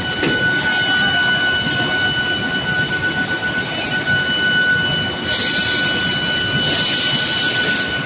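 IGBT induction billet heating furnace running with a steady high-pitched whine, over the broad rumble of a steel mill hall. About five seconds in, a loud hiss joins in and carries on with a short break.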